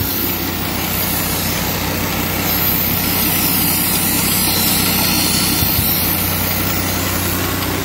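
Knives being sharpened on a motor-driven grinding wheel: a steady machine hum with a continuous grinding hiss.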